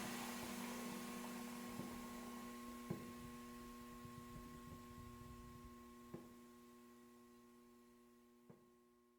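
Tail of a sci-fi door sound effect: a steady low electrical hum with a fading hiss and a few faint clicks, dying away to near silence.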